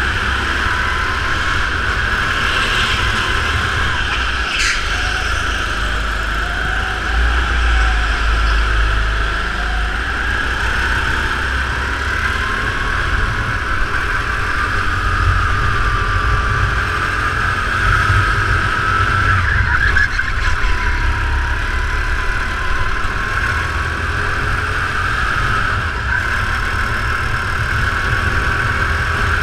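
Racing kart's engine heard onboard, running continuously with its pitch rising and falling as the throttle is worked through the corners, over a heavy low rumble. A brief sharp squeal about five seconds in.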